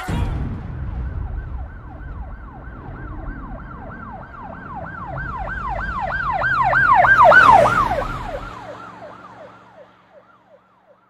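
Police car siren in a fast yelp, rising and falling about three to four times a second over a low rumble. It swells to its loudest about seven seconds in, then fades away.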